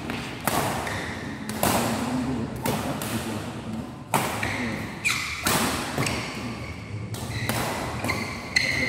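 Badminton rackets striking a shuttlecock in a fast doubles rally, sharp hits about once a second. Short squeaks of sneakers on the court floor come twice, around the middle and near the end.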